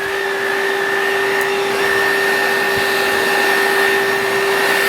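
Bissell Pet Hair Eraser cordless handheld vacuum running steadily with a high whine over its rushing air. The whine's pitch wavers slightly, then holds steady about two seconds in.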